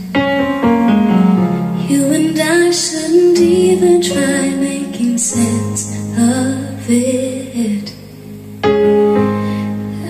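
Music from a JBL PartyBox 710 speaker: a woman singing a ballad over held chords. The music dips briefly near the end before a new chord comes in.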